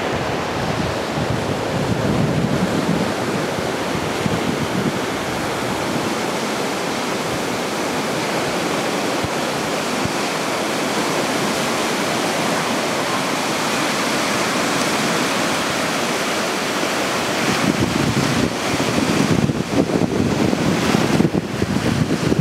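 Surf washing and breaking on a sandy beach, a steady rushing hiss, with wind buffeting the microphone in uneven low rumbles that grow stronger near the end.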